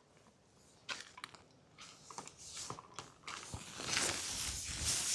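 Handling and rustling noise: a few short clicks and crackles, then from about three seconds in a louder continuous rustling rub.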